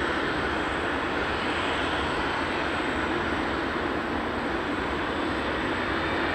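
Steady roar of an Etihad Airbus A380's four jet engines as the airliner rolls out along the runway just after touchdown.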